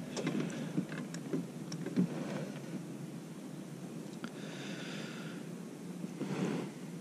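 A man breathing close to the microphone, with one long hissing exhale a little past the middle, and a few faint small ticks and knocks of handling through the first half.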